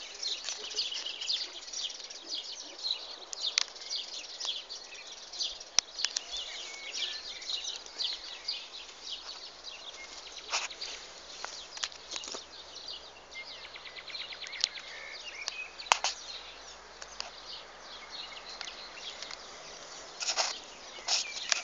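Rural outdoor ambience: many small birds chirping, with insects and a steady faint background hum. A few sharp clicks stand out, the loudest about six seconds in and again near sixteen seconds.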